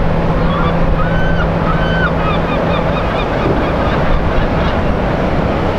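Harbour ambience: steady wind and water noise with a low, steady engine hum from a passing container ship and its tug. Birds call twice, about one and two seconds in, followed by several quick high chirps.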